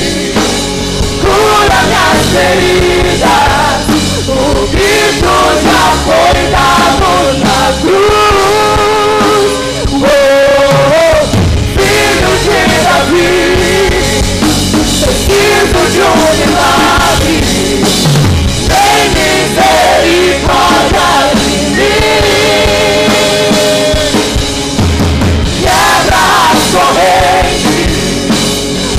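Live worship band playing a rock-style song: a woman singing lead, with other singers, over drum kit and keyboard, amplified through the stage sound system.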